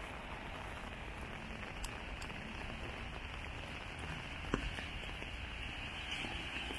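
Steady rain falling on a wet street, an even hiss with scattered drop ticks and one sharper tick about four and a half seconds in.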